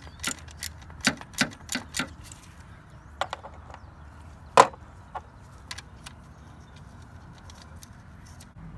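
Socket ratchet clicking as a bolt on the power steering pump is loosened by hand, about three clicks a second; the clicking stops about two seconds in. A few light taps follow and one sharp clack about four and a half seconds in.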